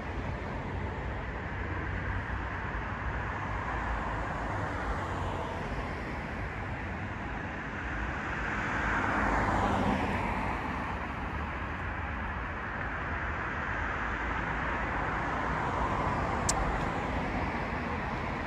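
Steady road traffic noise with a low rumble, and one vehicle passing close about nine seconds in, its sound swelling and then dropping in pitch as it goes by.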